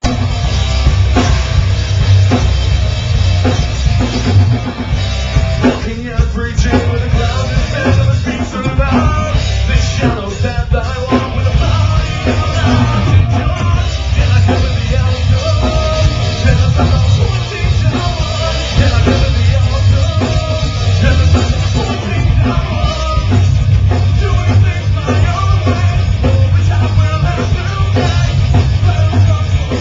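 Rock band playing live: electric guitar, bass guitar and drum kit, with a singer on vocals.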